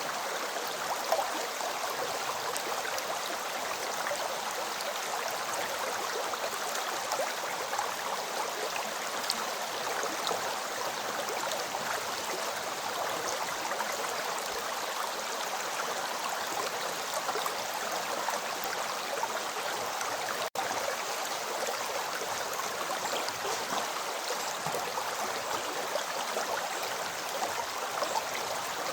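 River water flowing over stones, a steady rushing with a light gurgle, cut out for an instant about twenty seconds in.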